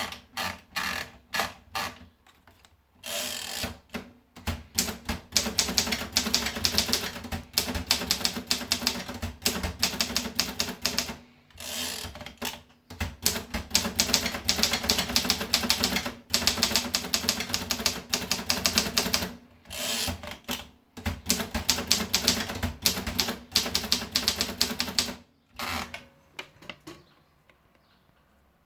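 Olympia Progress manual typewriter being typed on: a few single key strikes, then fast runs of typebar clacks broken by short pauses, stopping near the end.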